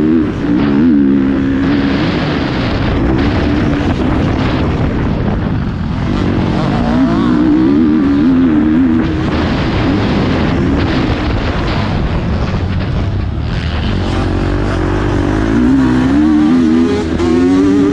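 Motocross bike engine heard from a GoPro on the rider while riding the track. The engine runs loud, its pitch climbing and dropping repeatedly as the throttle opens and closes, over a heavy rushing noise.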